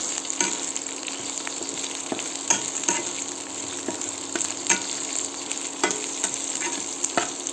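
Chopped onion and garlic sizzling in a little hot oil in a kadhai while a spatula stirs them. The spatula scrapes and knocks against the pan about once a second over the steady frying hiss.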